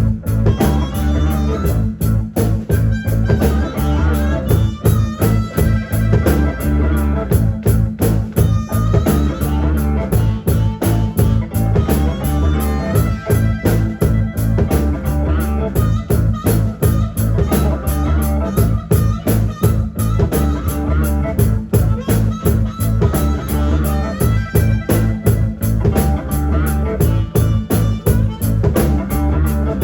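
Live blues-rock band playing an instrumental passage, electric guitar over a steady beat.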